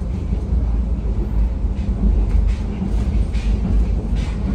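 Maitree Express passenger train running at speed, heard from aboard: a steady low rumble of the moving carriage on the rails, with a few faint ticks in the second half.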